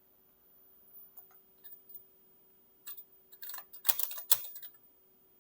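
Typing on a computer keyboard: a few scattered keystrokes, then a quick, dense run of keystrokes from about three seconds in.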